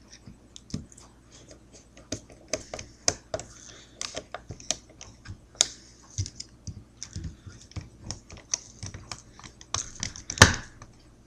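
Irregular small clicks and taps of paintball gun parts being handled and fitted together, with one louder knock about ten seconds in.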